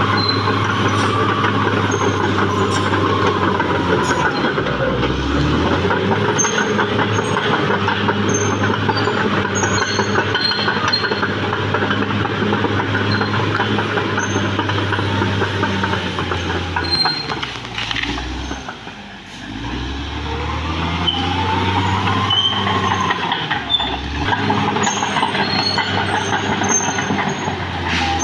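Caterpillar D6R XL bulldozer's diesel engine running steadily under load as the crawler works, with short high squeaks from its steel tracks. The engine sound drops away briefly about two-thirds of the way through, then picks up again.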